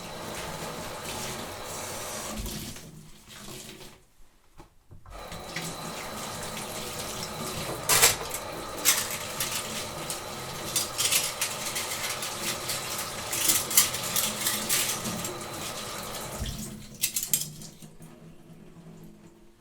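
Kitchen tap running into a sink while dishes are washed, with sharp clinks of dishes and glasses knocking together. The water stops briefly about four seconds in, runs again, and shuts off near the end, leaving quieter clatter.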